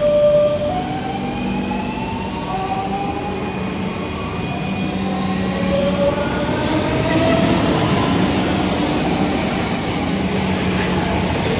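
DB Class 425 electric multiple unit pulling away. Its traction motors give several whines that step up in pitch as it accelerates, over the rumble of the wheels on the rails. Short high hisses come in during the second half.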